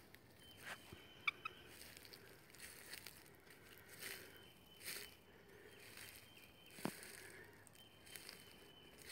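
Faint footsteps crunching through dry leaf litter, a few steps spread out, with a thin steady high-pitched tone that comes and goes behind them.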